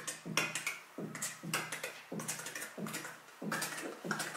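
A rhythmic home-made beat of short percussive hits, roughly two a second and somewhat uneven, each carrying a low tone.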